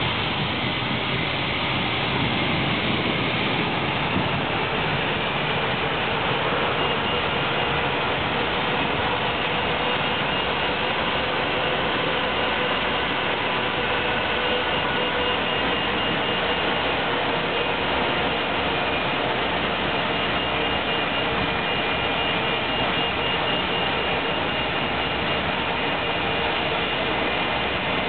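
Steady, loud jet-turbine roar of an Airbus A321 during pushback, mixed with the running of the towbarless tug that holds its nose wheel. A thin high whine comes and goes from about seven seconds in.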